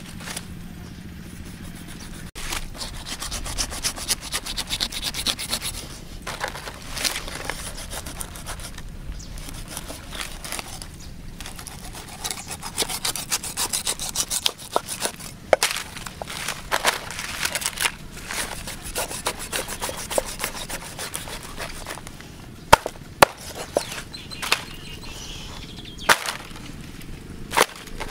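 A knife slicing and scraping through stingray skin and flesh in repeated rasping strokes, with dry palm fronds crackling under the fish. A few sharp clicks come in the last few seconds.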